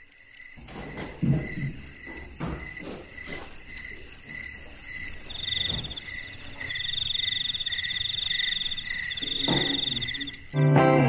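Crickets chirping steadily in even pulses at two pitches, with a faster high trill joining in the middle. Several dull knocks and thumps over the chirping, mostly in the first few seconds, as a television is set down on a wooden table.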